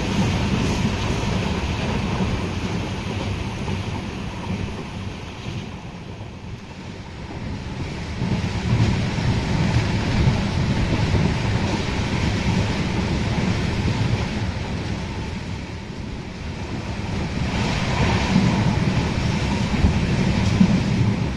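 Passenger train running, heard from on board: a steady rumble of the coach with wind rushing over the microphone, swelling and easing twice.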